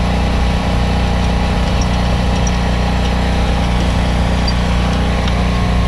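A motor engine running steadily: a constant low drone with a stable pitch and no change in speed.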